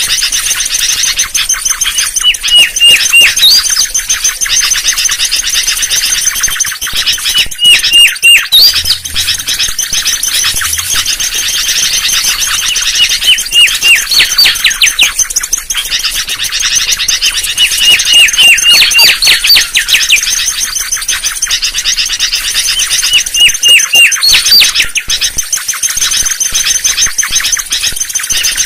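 Mangrove whistler (kancilan bakau) singing as a lure call: loud phrases of a few repeated clear whistled notes followed by quick downward-sweeping notes, coming about every five seconds. A dense, continuous high twittering runs underneath.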